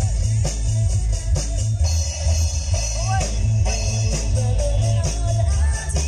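Live band playing amplified music: bass and kick drum pulsing on a steady beat under electric guitar and drum kit. Cymbals come in about two seconds in, and a voice sings a few short phrases.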